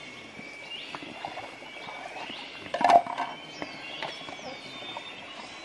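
Riverside forest ambience: repeated short rising chirps and thin high calls from forest animals over the hiss of a shallow stream, with a few clinks of plates being washed at the water's edge, the loudest about three seconds in.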